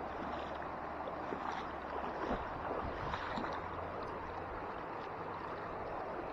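Shallow river water running over rocks: a steady rushing hiss. A few light splashes and rustles come near the middle as a hand works in the water among the plants to pull up a mesh keep-net.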